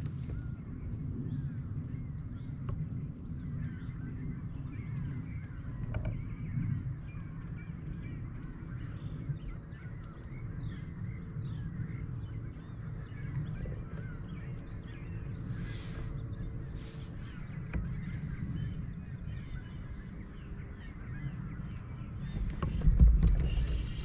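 Outdoor lake ambience: a steady low rumble with faint bird calls over it. Near the end come a few heavy thumps.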